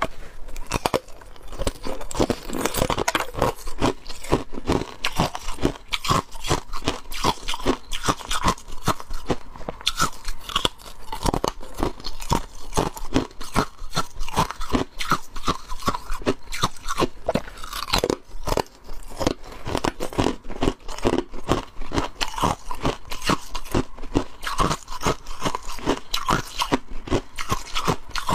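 Thin shards of balloon ice being bitten and chewed: a continuous run of crisp crunches, several a second, without a break.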